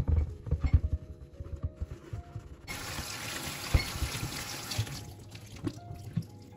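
Glass electric kettle being washed and rinsed in a stainless steel sink: soapy water sloshing and splashing, with a few knocks in the first couple of seconds and water running for about two seconds in the middle.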